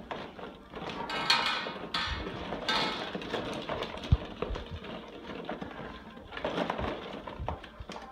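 Hollow plastic ball-pit balls clattering and rustling against each other and the plastic tub as puppies climb and dig through them, with a cluster of louder jostling early on and a single sharp click about four seconds in.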